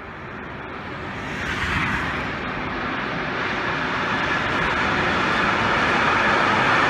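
Intermodal freight train rolling past: the rumble and hiss of its wheels on the rails grow steadily louder as the locomotive and then the long line of container and trailer wagons go by.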